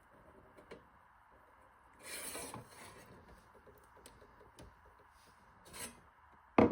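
Handling noises: a scraping, rubbing sound about two seconds in and again shortly before the end, then a single sharp knock right at the end.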